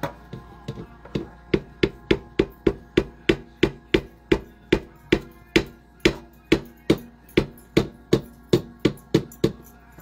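A spoon knocking repeatedly on the rim of a plastic blender cup to shake yogurt off it: a few uneven taps, then a steady series of sharp knocks about three a second that stops just before the end.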